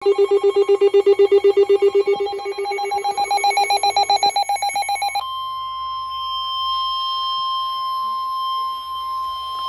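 NOAA weather radios sounding a severe thunderstorm warning alert: a fast, loud pulsing alarm beep for about five seconds, then the steady 1050 Hz NOAA Weather Radio warning tone, a single held tone that precedes the spoken warning message.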